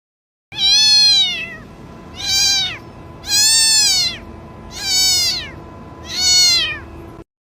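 Domestic cat meowing five times in a row, each meow rising then falling in pitch: a cat calling for food.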